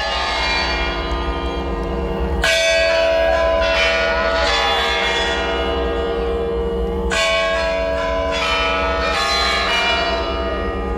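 Large bells ringing to mark the New Year just after the countdown. Clear new strikes come about two seconds in and again about seven seconds in, and each one rings on long after it is struck.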